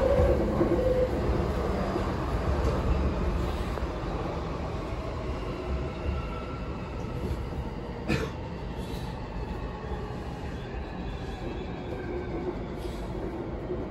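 Running noise of a JR East E235-0 series pre-production electric train heard inside the passenger car: a steady rumble of wheels on rail with faint motor tones, slowly easing off. One sharp click comes about eight seconds in.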